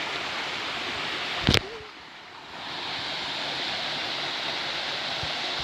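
Steady rush of a waterfall river. A sharp click about a second and a half in is followed by a second or so of quieter water before the rushing returns.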